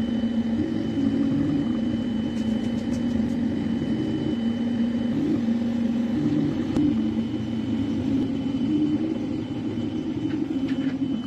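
3D printer's stepper motors humming as the print head moves, the pitch stepping up and down between a few steady notes as the moves change speed. A faint, steady high whine runs underneath.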